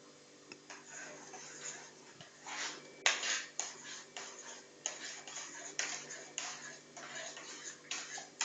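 A spoon stirring in a glass, clinking and scraping against its sides in a run of about a dozen quick strokes that starts about a second in.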